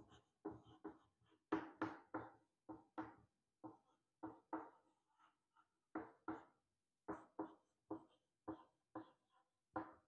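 Chalk writing on a chalkboard: a run of short taps and scrapes, about two strokes a second, with a brief pause about five seconds in.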